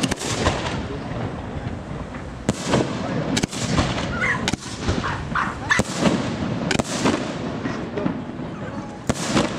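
Aerial firework shells bursting overhead: a series of sharp bangs at irregular intervals of about one to two seconds, with a rumbling echo between them.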